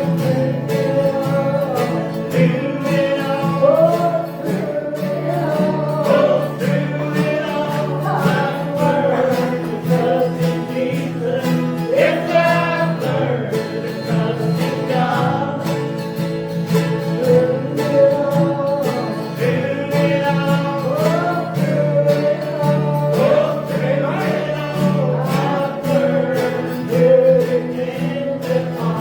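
A gospel song sung with acoustic guitar accompaniment: a voice carries the melody over steady strummed chords.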